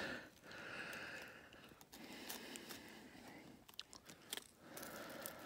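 Faint crunching of snow around an ice-fishing hole as a hand works at the tip-up, with a few light clicks.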